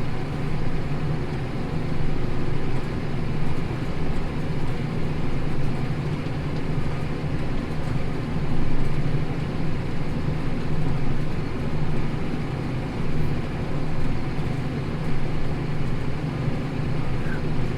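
Tractor engine running steadily under load while pulling a plough through stubble, a constant low drone with no change in speed.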